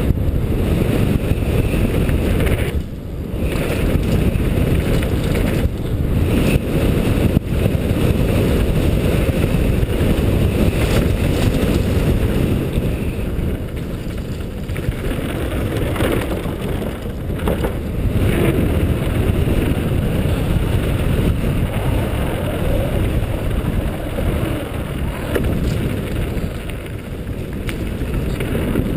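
Wind buffeting a helmet-mounted GoPro's microphone during a fast downhill mountain bike run, mixed with the tyres rumbling over the dirt and gravel trail and the bike rattling over bumps. A couple of sharp knocks come about six and seven seconds in.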